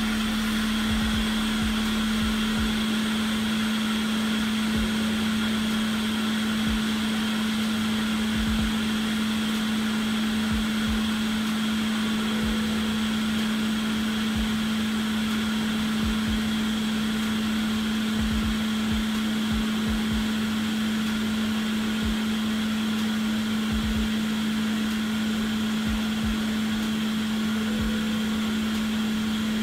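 Steady whirring of a small electric blower or fan on an electronics repair bench, with a constant low hum.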